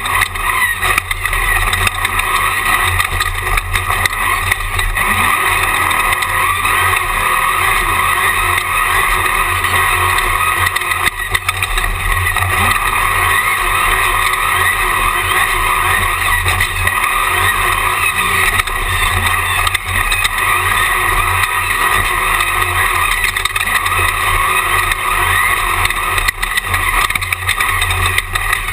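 Jimco Class 1 desert race car at speed, heard from an on-board camera. The engine runs loud and steady over a rough low rumble that rises and falls, with brief dips in level about a second in and again about eleven seconds in.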